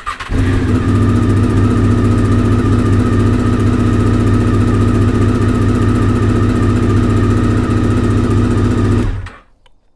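Honda VFR800's fuel-injected V4 engine, fitted with an aftermarket Delkevic exhaust, starts almost at once and idles steadily, then is switched off about nine seconds in.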